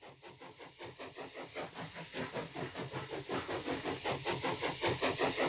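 Steam train running, a rhythmic beat of about three strokes a second that fades in and grows steadily louder as it approaches.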